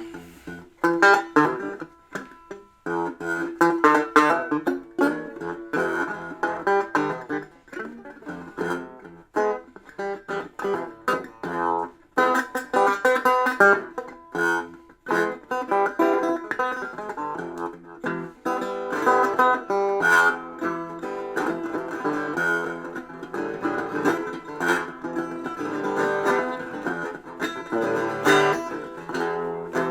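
A plucked guitar playing a busy, unbroken stream of picked notes.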